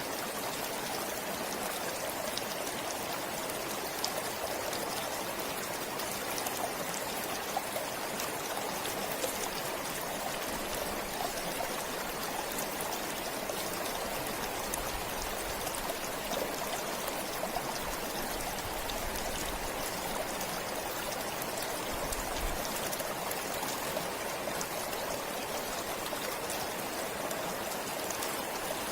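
A forest stream flowing steadily, a continuous rush of water with many small splashes and trickles.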